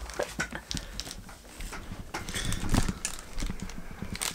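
A blind-box package being worked open by hand: irregular crinkling, rustling and small clicks, louder about three-quarters of the way through.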